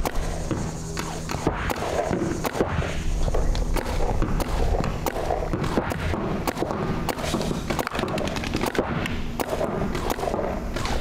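Paintball markers firing quick, irregular strings of sharp shots.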